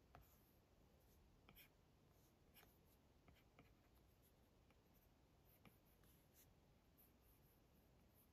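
Faint taps and scratching of a stylus tip on an iPad's glass screen during sketching: soft irregular ticks as the tip touches down, with light scraping strokes between them.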